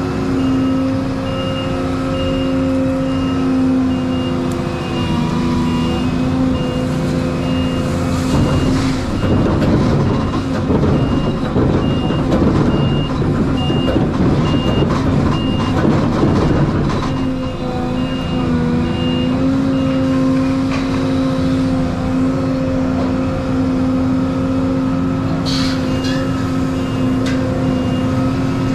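Volvo 235EL excavator's diesel engine running steadily under load, with a warning alarm beeping about twice a second until just past the middle. In the middle the sound turns louder and rougher while the machine works, and the engine note dips and rises again.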